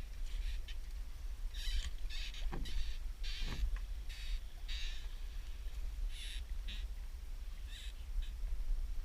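Wind buffeting the microphone with a steady low rumble, overlaid by a string of short, irregular hissy bursts.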